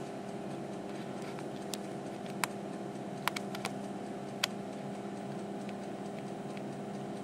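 Steady low hum with about six short, sharp clicks in the middle, three of them in quick succession.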